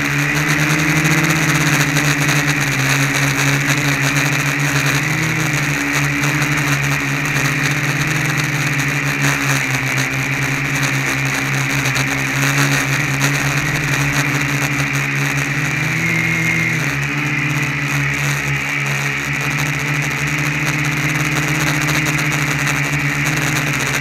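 Electric motors and propellers of a DIY 500-size quadcopter in flight, heard close from its onboard camera: a steady, loud buzzing hum with a faint hiss. The pitch wavers a few times as the throttle changes, most clearly about sixteen seconds in.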